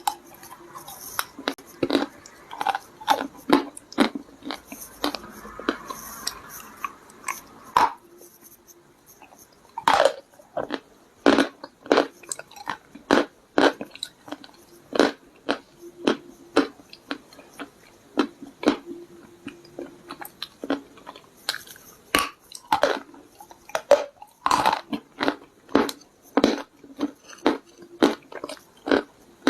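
Hard clay stones and clay paste being bitten and chewed: a run of sharp crunches, about one or two a second.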